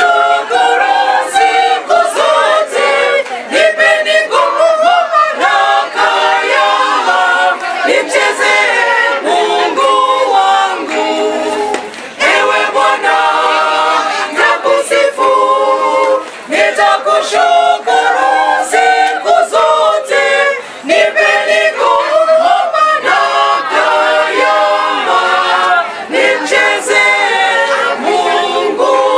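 Church choir singing a cappella in Swahili, many voices together without instruments, pausing only briefly between phrases.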